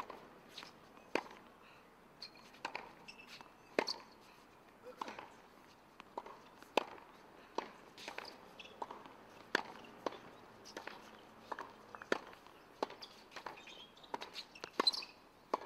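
Tennis rally on a hard court: rackets striking the ball and the ball bouncing, a steady run of sharp pops about every half second to a second.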